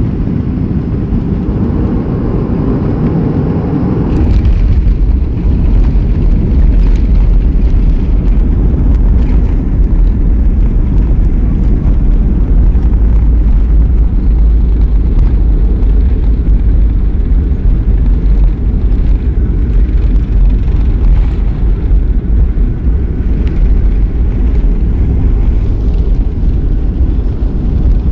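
Steady, loud low rumble of a moving vehicle, stepping up in level about four seconds in and then holding steady.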